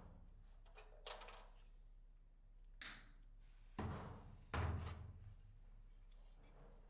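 Four short thuds and knocks, each fading within about half a second; the last two, just before and just after the middle, are the loudest and heaviest.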